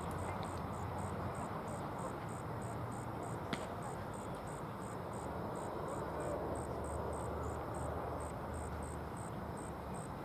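Insects chirping steadily in a high, even rhythm of about three chirps a second over a steady outdoor background hum. A single sharp click comes about three and a half seconds in.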